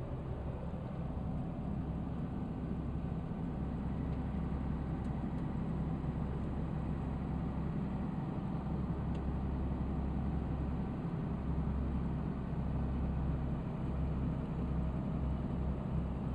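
Car driving slowly: a steady low engine and tyre rumble heard from inside the cabin.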